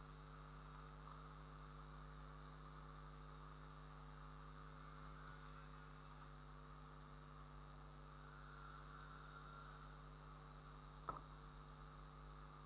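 Near silence: a steady low electrical hum in the recording, with one short click about eleven seconds in.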